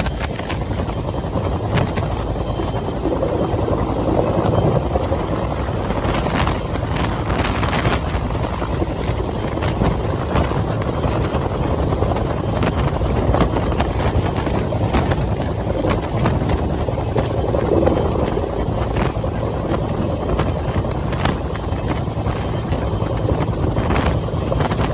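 Rescue helicopter hovering overhead during a hoist: a loud, steady engine and rotor noise, with the rotor downwash buffeting the microphone in frequent gusts.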